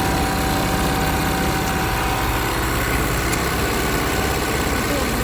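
Automatic bra-buckle pattern sewing machine running steadily at speed.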